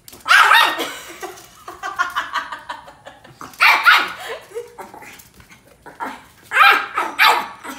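Chihuahua barking: loud, high barks in three main bursts about three seconds apart, with smaller barks in between.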